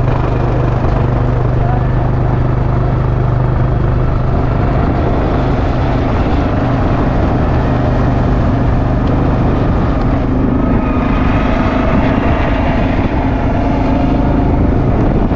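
Quad bike engine running under way. Its note is steady at first and rises about ten seconds in.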